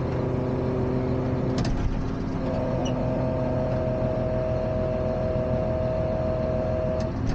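Allis-Chalmers 8030 tractor's six-cylinder diesel running steadily at low RPM while its hydraulics are worked after a hydraulic filter change. There is a single click about a second and a half in, and a steady higher whine comes in from about two and a half seconds until near the end.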